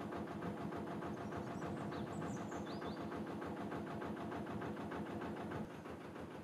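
Narrowboat engine running steadily under way with an even, rapid beat, dropping a little in level near the end. A few brief high chirps come through about two seconds in.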